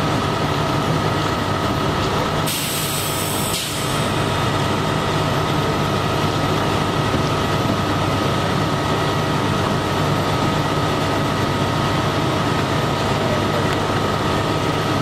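Prevost H3-45 coach bus idling with a steady low hum and a thin whine. A burst of air hiss comes about two and a half seconds in and lasts about a second and a half.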